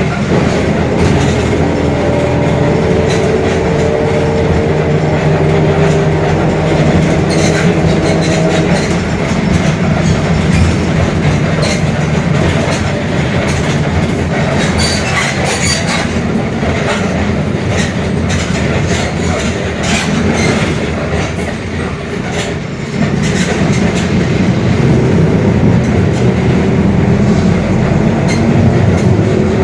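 Mercedes-Benz OF-1721 BlueTec 5 city bus under way, the drivetrain giving a steady whining growl from its differential, with rattles from the body. The drive eases off about two-thirds of the way through, then pulls again.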